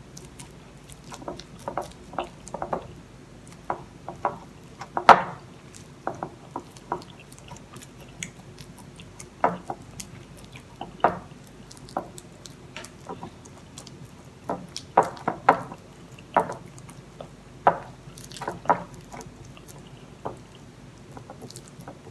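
Metal fork mashing ripe bananas on a ceramic plate: irregular taps and scrapes of the tines against the plate, the loudest tap about five seconds in.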